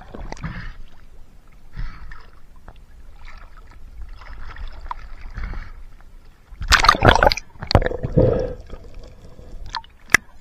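Underwater water noise with faint bubbling as a spearfisher comes up. About two-thirds of the way in come two loud bursts of splashing and sloshing as the camera breaks the sea surface among small waves, and there is a sharp click near the end.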